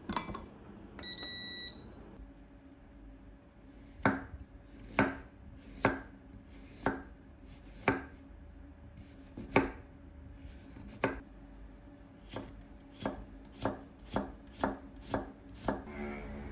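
An induction-heating rice cooker gives one held electronic beep as it is started. Then a chef's knife chops through a carrot onto a wooden cutting board: single cuts about a second apart that quicken to about two a second near the end, over a steady low hum.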